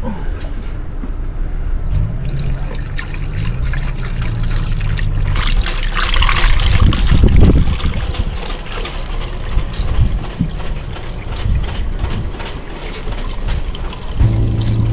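Rushing, splashing water over a low rumble, swelling louder for a couple of seconds midway; music comes in near the end.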